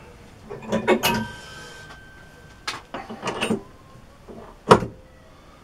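Metal tools and parts being handled on a workbench: several separate knocks and clinks, one followed by a short metallic ring, and a sharper knock near the end.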